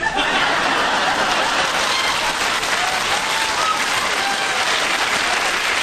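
Studio audience applauding, starting suddenly and holding steady, with a few faint shouts in the middle.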